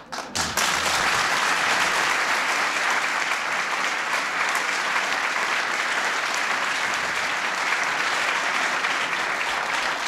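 Audience applauding: dense, steady clapping that begins about half a second in and continues evenly almost to the end.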